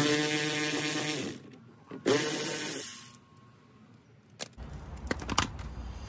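Cordless drill-driver spinning out the screws that hold the mud flap to the fender liner, in two short runs: the first about a second long, the second briefer, spinning up and winding down. A few sharp clicks and knocks follow as the loosened plastic mud flap is handled.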